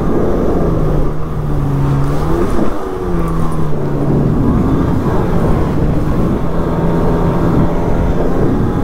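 A 1999 Sea-Doo GTX Limited personal watercraft's two-stroke twin engine running under way, over a heavy rush of wind and water spray. About two and a half seconds in the engine note sags and briefly drops away as the throttle eases, then picks back up and holds steady.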